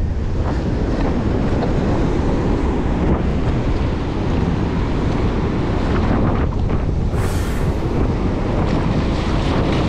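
Strong wind buffeting the microphone over the steady wash of heavy surf breaking across rocks, with a brief sharper hiss about seven seconds in.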